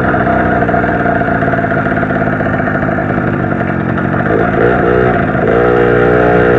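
Zanella 70cc two-stroke moped engine running under way. Its pitch shifts about four seconds in, then it holds a steadier pitch near the end.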